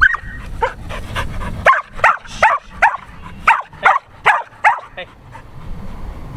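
Australian Shepherd barking in a quick run of about nine short, high yips and barks during rough play, starting about a second and a half in and stopping about five seconds in.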